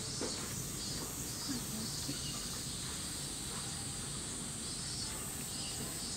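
Steady outdoor ambience: a constant high insect drone with faint, indistinct voices of people now and then.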